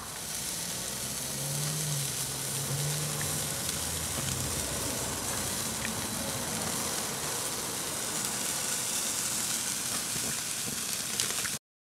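Steak sizzling on hot grill grates over glowing lump charcoal, a steady hiss that cuts off abruptly near the end.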